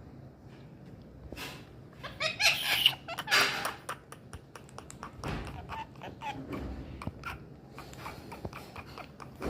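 A parrot calling: two loud, harsh bursts a little after two and three seconds in, then quieter short calls and clicks.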